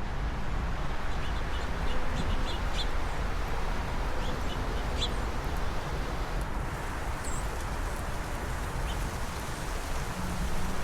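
Small songbirds chirping in short scattered calls over steady wind noise on the microphone.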